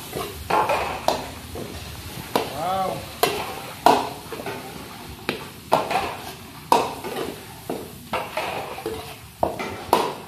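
Long-handled metal ladle scraping and knocking against a large steel wok as ground meat is stirred and sautéed, the meat sizzling under it. The ladle strokes come unevenly, roughly once or twice a second.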